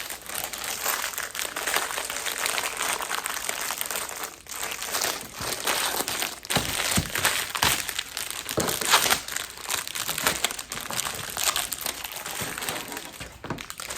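Crinkling and rustling of LEGO set packaging being handled, with many short crackles throughout, as the instruction booklet is unpacked.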